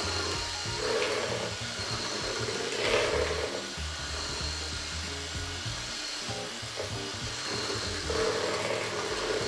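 KitchenAid stand mixer's motor running steadily, driving its food grinder attachment as potato is pushed through with the plunger, over background music.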